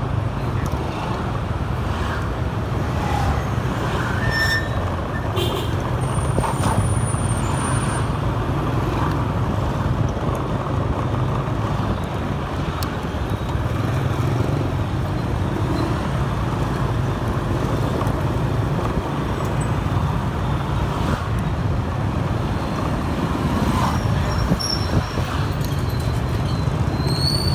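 Motor scooter riding slowly through dense motorbike and car traffic: a steady low rumble of engine and road noise that holds even throughout, with a few faint short high tones from the surrounding traffic.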